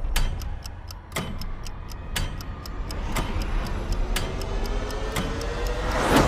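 Clock ticking at an even pace, a sharper tick about once a second with fainter ticks between, over a low steady rumble. A rising tone swells in during the second half.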